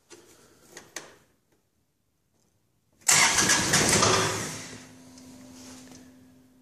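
The three-cylinder diesel of a John Deere 2025R compact tractor being cold-started just after the glow plugs go off, and starting hard. About three seconds in it cranks and fires loudly for about a second and a half, then settles into a much quieter, steady running sound with a low hum.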